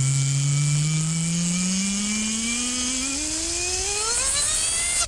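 A buzzing synthesizer tone rises steadily in pitch, climbing faster near the end, then cuts off suddenly: an electronic-music build-up riser.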